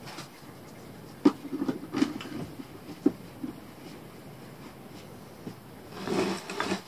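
Small objects being handled and rummaged through on a workbench: a few sharp clicks and knocks, the loudest about a second in, with light clattering and rustling between.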